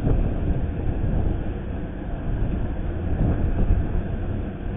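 Steady low rumbling noise picked up by a camera's built-in microphone, with no voices.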